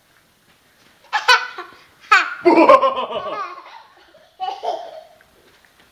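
A toddler girl laughing in squealing giggles, in three bursts: a short one about a second in, a longer run from about two to four seconds, and a shorter one near the end.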